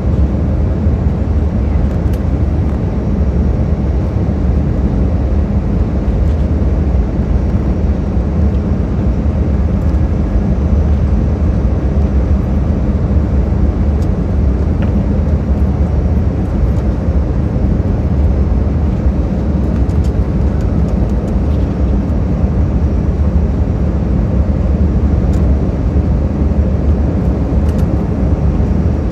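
Steady cabin noise of an Airbus A319 airliner on final approach: a constant deep rush of engine and airflow noise.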